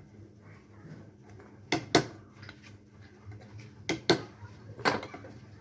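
A handful of sharp knocks: two close together about two seconds in, two more around four seconds, and one near five seconds, over a low steady hum.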